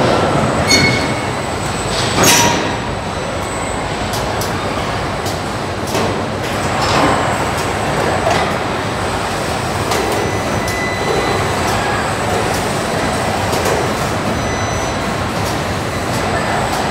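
Car body-shop assembly line running: industrial robots and fixtures make a steady mechanical din with scattered clicks and a few thin steady tones, and a sharp burst about two seconds in.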